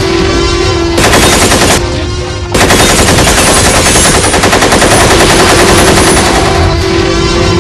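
Automatic rifle fire in two bursts: a short one about a second in, then a longer one from about two and a half seconds in until near the end, over background music.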